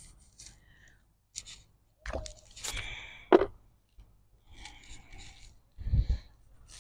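Irregular rubbing and scraping handling noises, with a short sharp knock about three seconds in and a dull thump about six seconds in.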